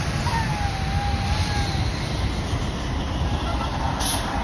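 Semi-truck towing a dry-van trailer driving past on a wet road: diesel engine rumble under the hiss of tyres on wet pavement. A faint whine dips in pitch over the first two seconds, and a short hiss comes near the end.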